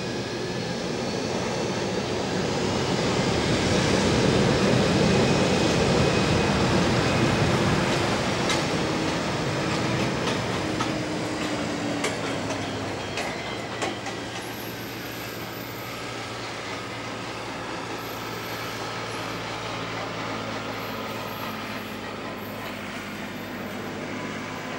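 Boeing 727-264F freighter's three Pratt & Whitney JT8D jet engines running at low power as it taxis, a rushing drone with turbine whine. It swells to its loudest a few seconds in, then eases to a steadier, lower drone as the jet moves away.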